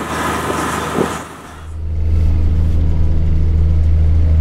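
Engines of a large river passenger ship under way: a steady mechanical drone. About a second and a half in, it drops briefly and changes to a deeper, louder steady hum.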